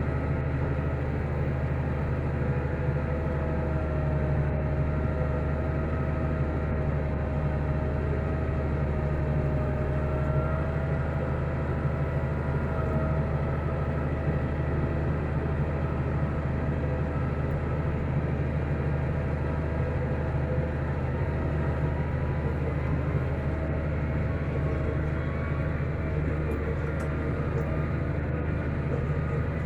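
Tractor engine running steadily under load as it pulls a laser land leveller, with a constant whine over the engine sound.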